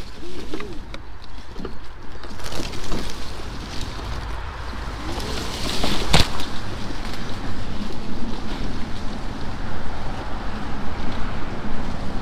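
Electric off-road mobility scooter driving over a leaf-strewn woodland path: steady rumble of the tyres over rough ground with wind noise on the microphone and scattered crackles. A single sharp crack about six seconds in.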